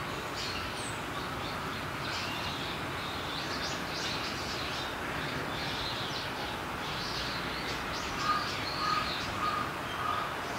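Birds chirping over a steady background hiss, with a run of louder repeated calls, about two a second, in the last couple of seconds.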